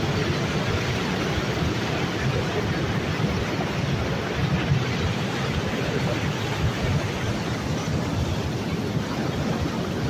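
Glacial meltwater debris flow carrying boulders down a rocky slope: a steady rushing roar of water and tumbling rock, with a deep rumble underneath.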